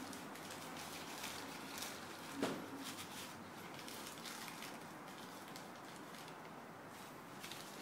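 A dog eating roast pork out of a plastic bag, with the bag crinkling now and then as it chews and noses in. One short, louder sound, falling in pitch, about two and a half seconds in.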